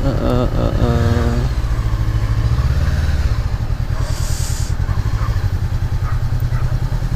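Honda CB500X's parallel-twin engine running steadily at low speed as the motorcycle rolls slowly, a low pulsing rumble. A short hiss comes about four seconds in.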